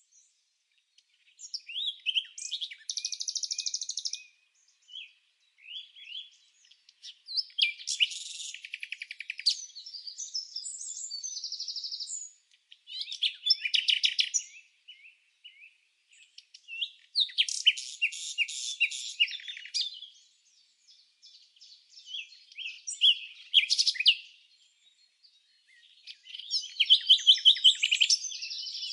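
Songbirds singing in phrases of high chirps and rapid trills, each lasting a second or few, with short pauses between.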